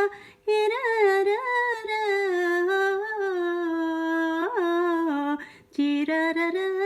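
A woman singing a wordless melody without accompaniment, on long held notes that bend up and down. Two short pauses for breath break it: one just after the start, one about five seconds in.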